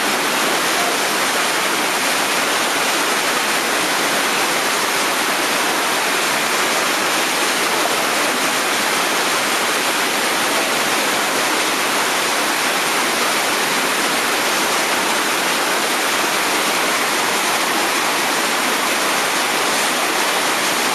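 Whitewater rapid rushing steadily: the churning of a large river hole, a loud, even hiss with no let-up.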